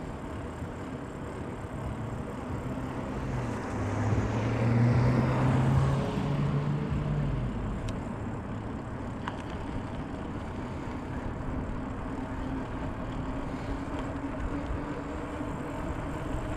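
Wind and road noise on a chest-mounted action camera while riding a bike along a street. A motor vehicle passes, swelling loudest about four to seven seconds in.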